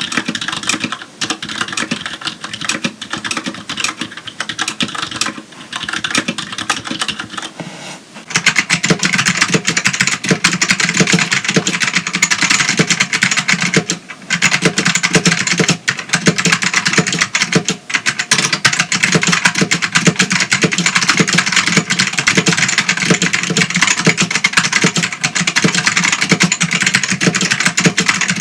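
Continuous typing on a Filco Majestouch Tenkeyless keyboard with Cherry MX Red linear switches. About eight seconds in, it changes to louder, sharper typing on a Ducky DK1087-N keyboard with Green Alps (Ducky XM) switches.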